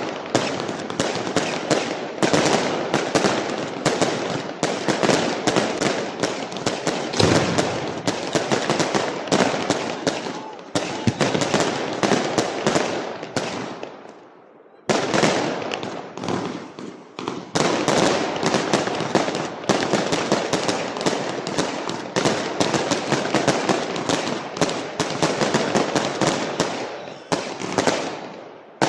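Fireworks and firecrackers going off in a dense, rapid string of cracks and bangs; the barrage dies away about halfway through and then starts again abruptly.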